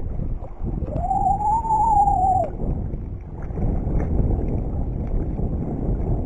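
Wind buffeting the microphone in a steady low rumble. About a second in, a single clear tone rises, holds briefly and falls away over about a second and a half.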